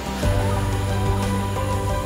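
Background music made of held, chord-like tones, with a low bass note coming in just after the start.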